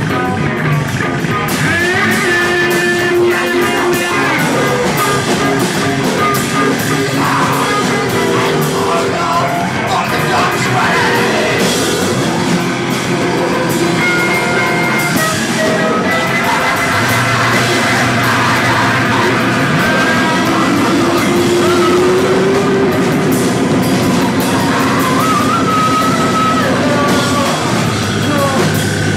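Live amplified band music, noise rock: a loud, dense, continuous wall of sound with pitched tones sliding up and down through it.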